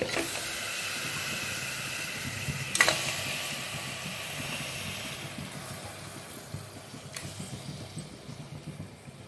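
Raw mutton pieces dropped into hot oil and fried ginger-garlic paste in a pressure cooker, setting off a sudden loud sizzle that slowly dies down. A sharp knock about three seconds in, and a fainter one near the end of the sizzle.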